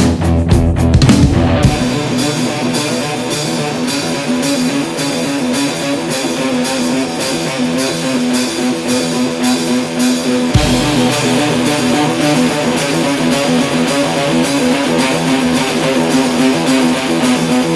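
Rock music with guitar, an instrumental stretch of the soundtrack with a steady beat and no singing.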